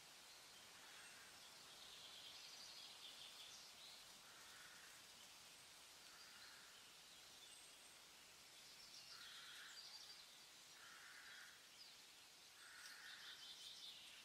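Near silence: a faint hiss with soft, short chirps recurring every second or two.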